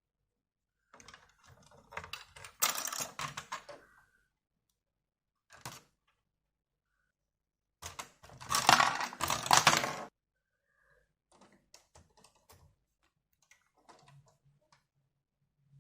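Bursts of rapid, irregular clicking and clattering, like small hard objects being handled: one cluster about a second in and a louder, denser one about eight seconds in, with scattered faint ticks between and after.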